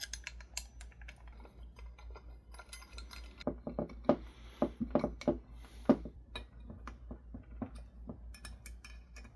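Irregular small metallic clicks and clinks of steel screws and an Allen key being handled and driven into a monitor stand's clamp base.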